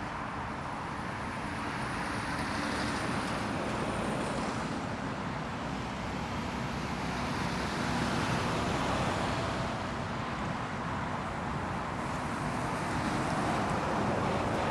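Jet airliner engines as a plane passes on approach or landing: a steady noise that swells over several seconds and then eases off, with a faint high whine early on that fades.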